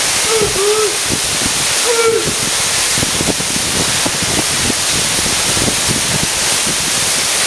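Waterfall pouring steadily into its plunge pool, a loud, even rush. A few short calls that bend in pitch sound over it in the first two seconds.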